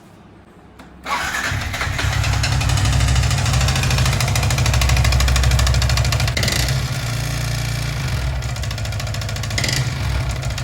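Yamaha R15 V3's single-cylinder four-stroke engine started about a second in and running in neutral with a fast, even knocking tick. This is the knock that came on after the engine ran low on oil; the service centre blames damage to the piston, timing chain and rockers, while the owner suspects only the upper engine and rockers.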